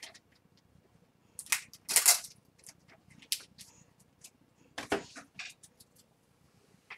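Hands handling trading cards and their packaging on a wooden table: irregular clicks and short rustles, the loudest about two seconds in and again just before five seconds.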